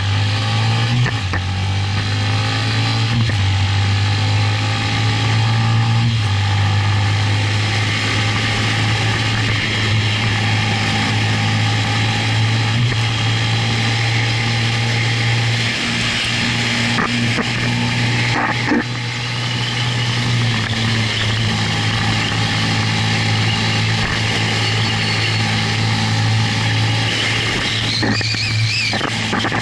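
Motorcycle engine running under way, its low note stepping in pitch a few times with gear changes and throttle, over heavy wind rush on the microphone. A brief wavering high squeal sounds near the end.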